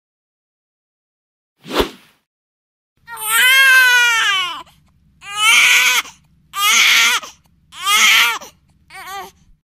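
A baby crying in five wavering wails, the first and longest starting about three seconds in, the last one short and quieter. A brief sharp sound comes just under two seconds in.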